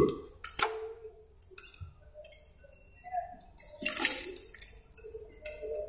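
Two sharp clicks near the start, then a brief scraping hiss about four seconds in: hand-tool sounds of stripping the insulation off a car's ECU relay supply wire at the fuse box.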